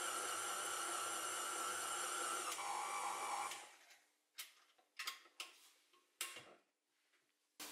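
Tilt-head stand mixer motor running steadily with the dough hook kneading sourdough focaccia dough, then switched off about three and a half seconds in. A few short clicks and knocks follow as the mixer head is tilted up and the hook lifted out of the bowl.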